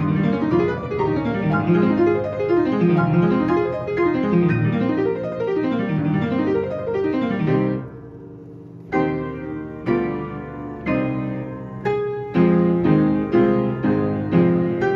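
Player piano playing a QRS word roll. It runs through a flowing rippling passage, eases into a brief held lull about eight seconds in, then comes back with struck chords that quicken toward the end.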